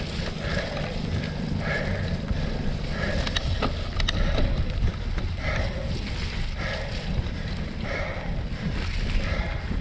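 Wind buffeting the microphone over the steady rumble of a cyclocross bike riding across a wet, muddy course, with a regular rasping sound about once a second and two sharp clicks about three and a half and four seconds in.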